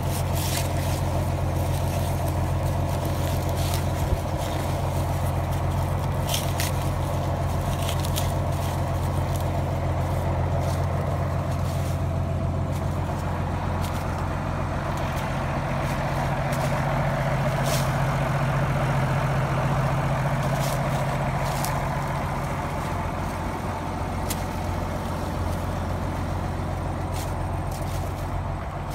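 A farm tractor engine runs steadily with the corn chopper it is pulling, a low drone that grows louder for a few seconds about halfway through. Scattered light clicks sound over it.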